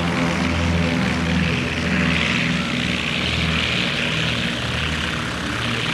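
Light propeller airplane engine running steadily, a low droning hum with a hiss of propeller wash over it.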